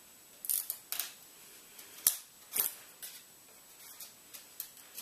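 Opening a laptop's retail packaging by hand: a handful of short scrapes and rustles of plastic and cardboard, with a sharp click just after two seconds and a few light ticks later.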